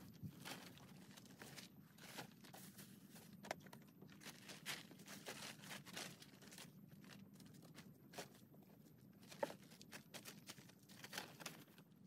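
Faint, intermittent crinkling and rustling of a plastic tarp being handled over a tent, with a few sharper clicks.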